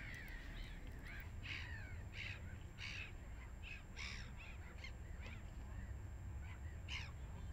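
Birds calling: a run of short, harsh cries in quick succession, over a steady low rumble.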